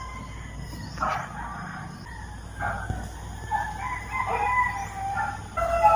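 Rooster crowing: shorter calls about a second in, then a long drawn-out crow in the second half.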